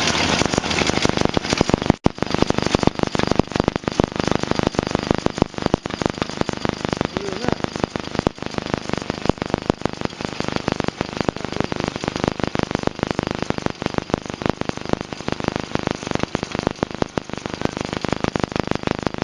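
1928 Ford Model A four-cylinder engine running, smothered by a dense, rapid crackle of electrical clicks: ignition interference from the spark plugs picked up by the camera.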